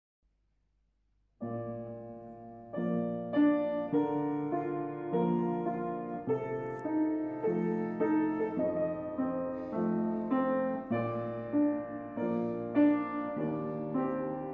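Solo piano music. It starts after a short silence about a second and a half in, with sustained notes and chords changing every second or so.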